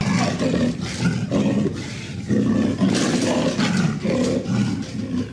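Big cat growling and roaring, a run of rough calls with short breaks, given as a leopard's.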